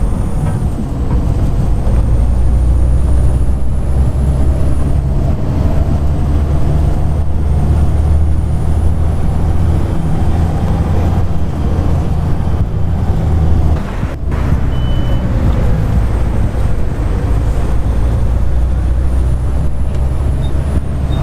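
Volvo B7TL bus engine running under way, a heavy low rumble with a loud high-pitched 'hoover' whine that climbs slowly for several seconds and falls back sharply, three times over.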